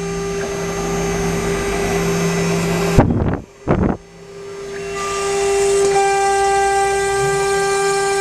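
Desktop CNC router spindle whining at a steady high pitch as the bit cuts into wood board, with a hiss of cutting noise under it. About three seconds in the sound breaks off with a sharp click and a brief drop, then the whine builds back up and holds steady.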